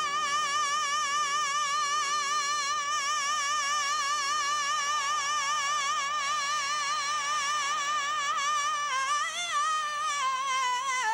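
A female soul singer holds one long, high note with a steady vibrato, then bends it into a short melismatic run near the end. A piano chord rings and dies away beneath it.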